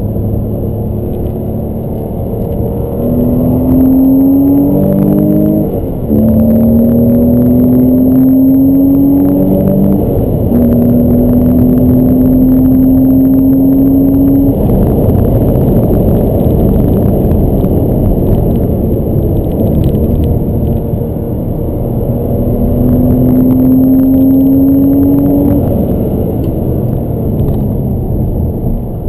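Porsche Boxster S flat-six engine heard from inside the cabin with the roof up, pulling hard with its pitch climbing and two quick upshifts about six and ten seconds in. It then runs on with road and wind noise, climbs once more and eases off near the end.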